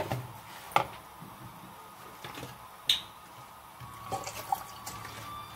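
Metal spoon stirring a wet chili-paste-and-salt mixture in a plastic mixing bowl, with a few sharp taps and clinks of the spoon against the bowl.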